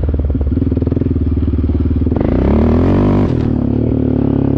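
ATV engine running, revving up with a rising pitch about two seconds in, then dropping back suddenly a second later.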